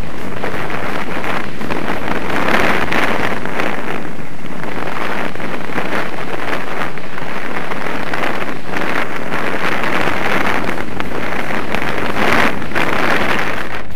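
Wind rushing over a vehicle-mounted camera's microphone, with an off-road vehicle's engine running underneath. The rush rises and falls several times.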